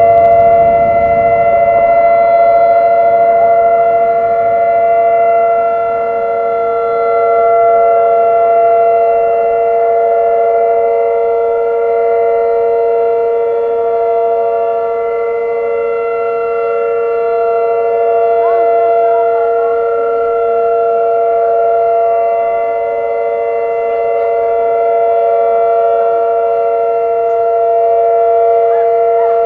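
Several outdoor warning sirens, Whelen 2806 and 2905 units among them, sounding a steady alert tone together in a monthly siren test. The overlapping pitches hold level while the volume swells and fades slowly as the rotating sirens turn.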